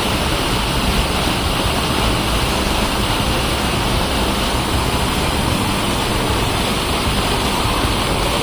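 Steady, loud rush of falling water.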